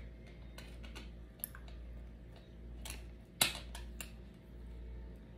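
Small eating sounds: scattered light clicks and taps, with one sharper crack a little past halfway, over a steady low hum.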